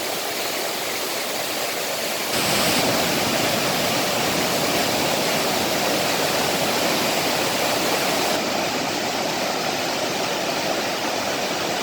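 Mountain valley stream rushing over rocks in a steady wash of water noise, growing louder and fuller about two seconds in.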